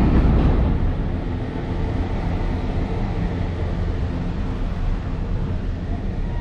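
Steady low rumble and rushing noise inside a Ngong Ping 360 cable car gondola as it travels along its cable, a little louder in the first second.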